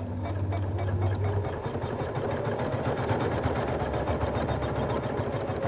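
Computerized embroidery machine stitching out a decorative design in its hoop: a fast, steady run of needle strokes.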